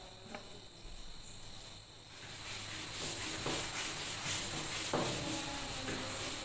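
A chalkboard duster rubbing back and forth across a blackboard, wiping off chalk writing: a scratchy rasp of quick strokes that starts about two seconds in, with two knocks along the way.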